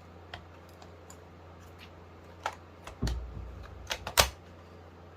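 Plastic clicks and knocks from handling a smoke and carbon monoxide alarm, readying it for a test: a few light clicks, a dull thump about three seconds in, then two sharp clicks around four seconds, the second the loudest.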